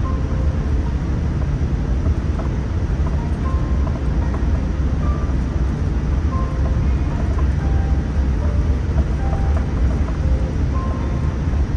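Steady deep rumble of a Boeing 787-9 airliner heard from inside the cabin, with faint, scattered short musical notes over it.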